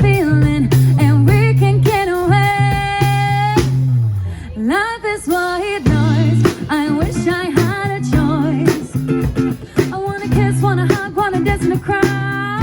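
Live pop band playing a song: a lead singer's vocal line over guitar, bass and a steady drum beat.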